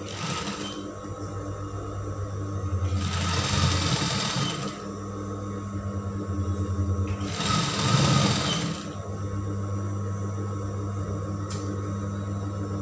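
Industrial sewing machine: its motor hums steadily, and the machine stitches in short runs of a second or two as the fabric is guided under the foot.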